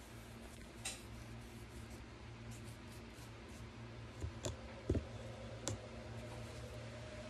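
A few light clicks and taps from painting supplies being handled, the loudest about five seconds in, over a low steady hum.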